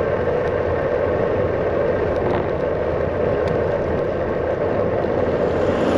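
Steady rush of wind on the camera microphone, mixed with tyre noise, as a loaded gravel touring bike rolls along the road.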